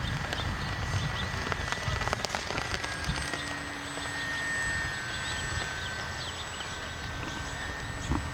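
Gusting wind rumbling on the microphone. Under it, the faint steady whine of the model plane's electric motor drifts slightly lower in pitch as the plane passes overhead.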